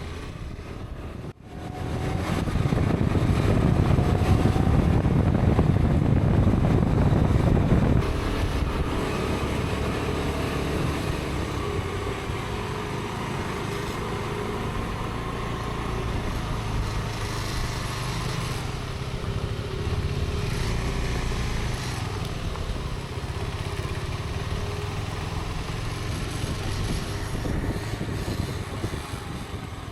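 Motorcycle engine running, loudest from about two to eight seconds in, then steadier and a little quieter.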